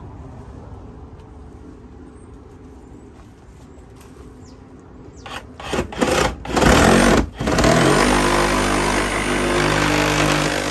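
A DeWalt cordless reciprocating saw starts about halfway in with a few short bursts, then runs steadily as it cuts through the coop's wooden board siding.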